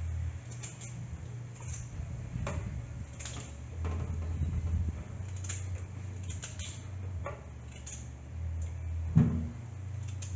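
Knife cutting raw potato into chunks held in the hand over a pot of water: scattered light clicks and ticks over a steady low hum, with one louder thump about nine seconds in.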